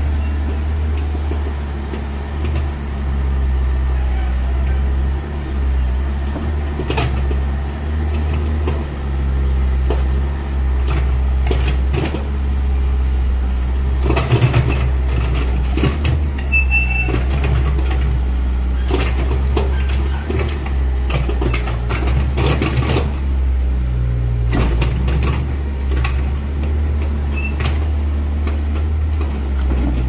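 Mini excavator's diesel engine running steadily under load, with repeated metallic clanks and knocks from its bucket and steel tracks as it works in mud to get a thrown track back on.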